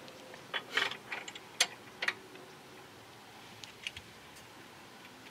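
A socket ratchet and wrench clicking and clinking on the steel bolts of a front disc-brake caliper bracket as the nuts are run down. The short clicks come in scattered bunches over the first two seconds, with a couple more near four seconds.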